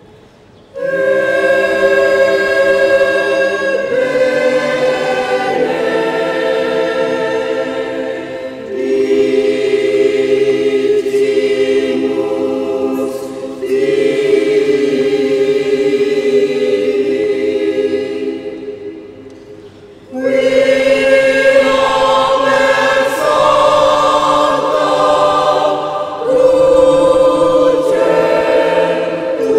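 Mixed choir of men's and women's voices singing in parts, holding chords in long phrases. It comes in about a second in, dies away about two-thirds of the way through, then re-enters louder.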